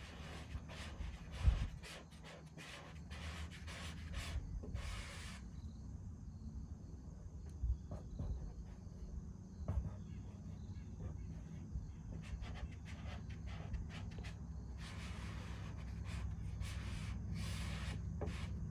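Squeegee rubbing in repeated scraping strokes over a vinyl decal's transfer paper, pressing it down from the center out toward the edges: a quick run of strokes at the start, sparser ones in the middle, and another run near the end. A steady low hum sits underneath.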